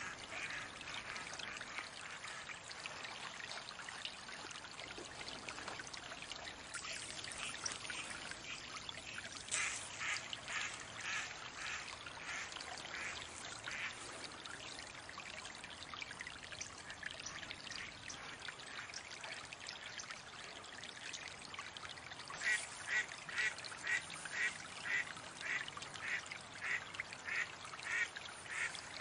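Mallards at the water: bathing splashes under runs of evenly spaced duck quacks. The longest and loudest run begins about three-quarters of the way through, at about two quacks a second.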